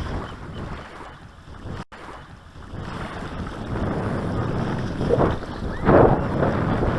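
Wind buffeting the microphone outdoors, a rough rushing noise that dips briefly about two seconds in and grows louder and gustier in the second half.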